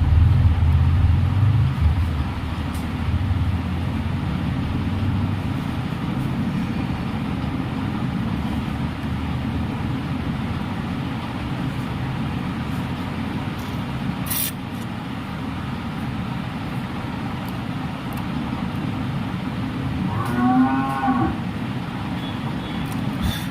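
A cow lowing: a long, deep moo at the start and a shorter, higher call near the end, over a steady low rumble.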